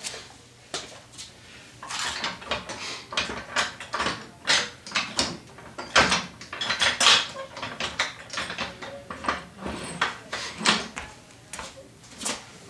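Hand tools and metal parts clinking and knocking irregularly as a wheel is swapped on an old Honda four-wheeler.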